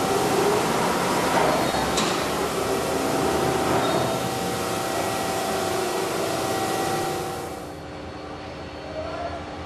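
Heavy machinery running steadily in a locomotive repair shop, a dense mechanical noise with a few steady hum tones and a sharp metallic click about two seconds in. The noise drops noticeably quieter about three-quarters of the way through.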